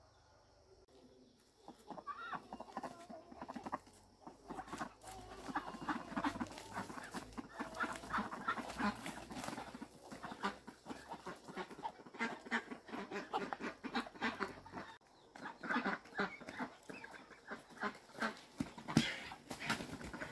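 Domestic fowl calling over and over, a dense run of short, rapid calls that starts about a second and a half in.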